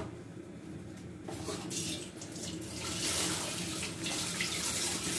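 Water running from a tap into a sink, starting about a second in and growing stronger.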